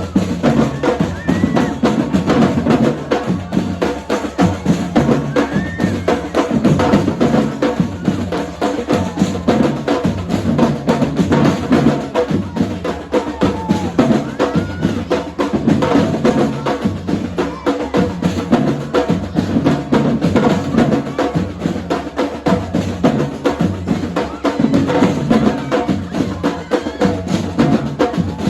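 Brazilian-style drum line playing a continuous, loud percussion groove, with deep bass drums under dense, rapid drum and woodblock-like strokes.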